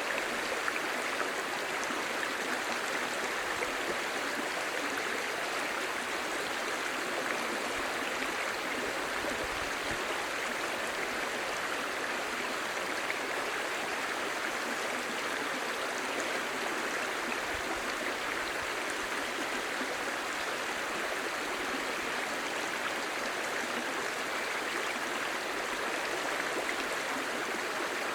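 A shallow, clear mountain stream babbling steadily over stones, an even rush of running water without a break.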